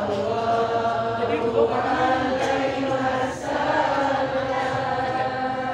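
Group of voices chanting sholawat, Islamic devotional praise of the Prophet, in long held notes.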